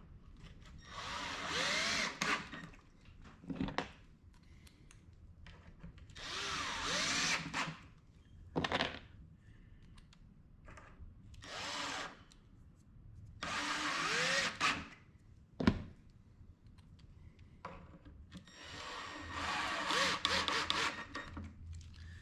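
Power drill driving screws into a half-inch wood box panel without pre-drilling, in four runs of a second or two each as the motor spins up, with a few short knocks in between.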